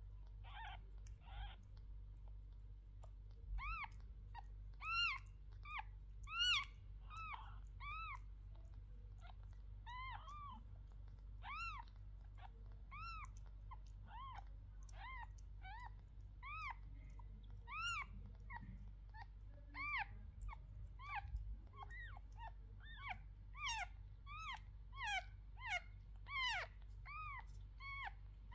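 Newborn kittens mewing: short, high, squeaky mews that each rise and fall in pitch, about one or two a second, crowding closer together near the end.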